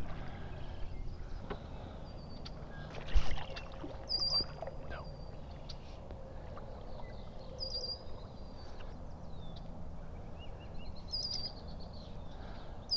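Kayak paddle working in shallow marsh water, with one loud splash or knock about three seconds in. A songbird in the marsh repeats the same short phrase several times: a few quick high notes, then a trill.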